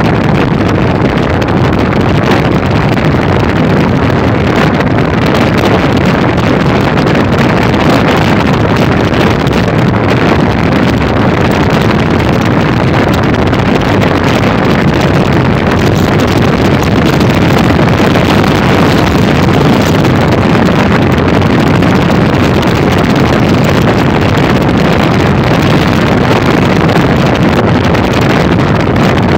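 Steady wind rush buffeting the microphone on a moving motorcycle, with the bike's running engine and road noise underneath.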